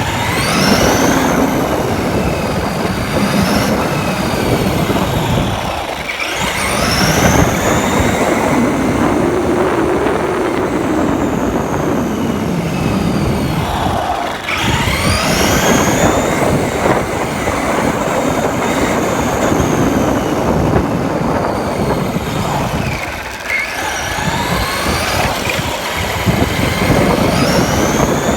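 Electric motor of a Traxxas RC truck, heard from on board, whining up and down in pitch as the truck speeds up and slows again and again, over a steady rumble and rattle of tyres and chassis on the ground.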